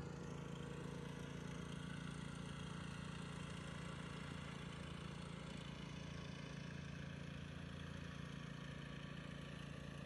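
Husqvarna lawn tractor's petrol engine running at a steady speed as the radio-controlled tractor drives along, a steady low hum without surges.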